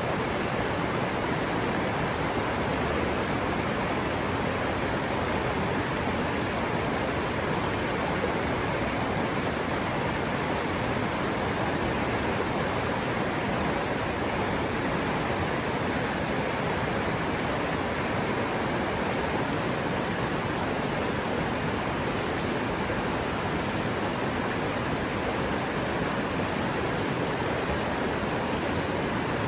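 River water rushing over rocks in a forest stream: a steady, even rush with no breaks.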